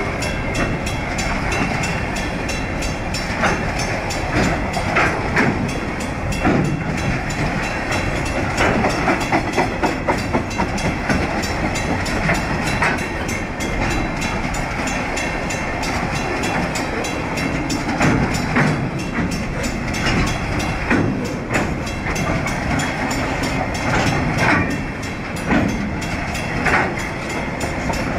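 Container flat wagons of a TasRail freight train rolling past close by: a steady loud rumble of steel wheels on rail with irregular clacks and knocks.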